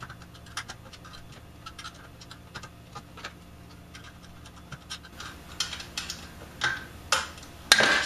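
Small metal parts being handled on the chassis of a vintage RF signal generator as it is taken apart. Light clicks and ticks come first, then louder scraping and rattling strokes over the last few seconds, the loudest just at the end.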